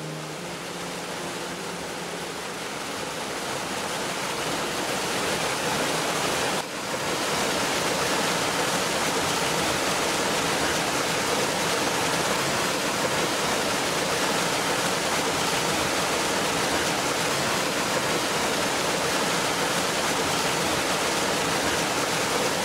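Waterfall pouring down rock into a plunge pool: a steady rush of falling water that swells over the first several seconds, breaks off for an instant about a third of the way in, then holds.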